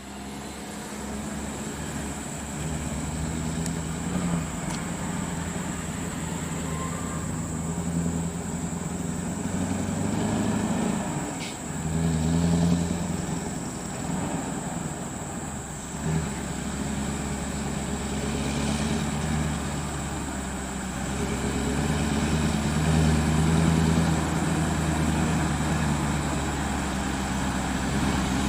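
Scania R580 truck's V8 diesel engine running under the load of a bulldozer on its trailer, a low drone that swells and eases several times.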